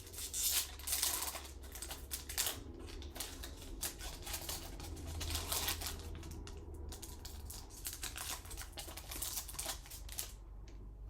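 A foil Pokémon TCG booster pack being opened by hand, its wrapper crackling and crinkling in quick, irregular bursts that thin out about ten seconds in.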